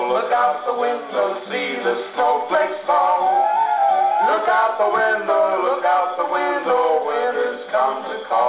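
Acoustic phonograph console playing a record: a song's instrumental and vocal music with no deep bass and little treble.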